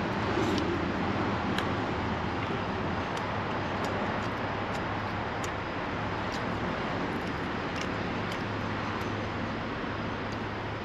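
A steady low mechanical hum under an even rushing noise, with a few faint small clicks scattered through.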